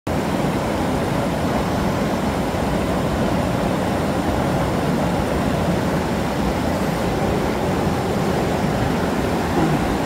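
Waterfall's steady rushing water noise, even and unbroken.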